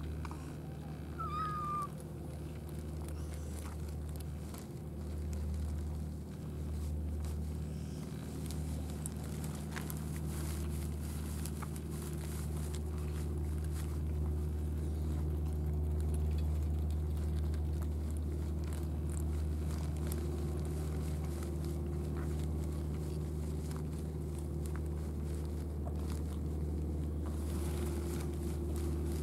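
A domestic cat gives one short meow about a second and a half in. Then cats eat dry cat food with faint crunching clicks, over a steady low hum.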